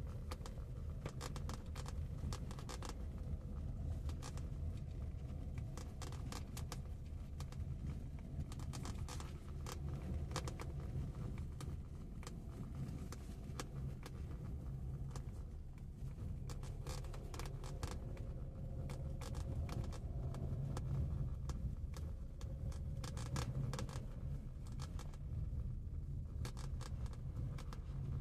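Steady low rumble of a moving vehicle, with many small clicks and crackles throughout.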